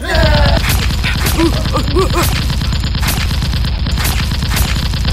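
Rapid automatic-gunfire sound effect, a dense unbroken burst of shots. Short shouted voices come over it near the start.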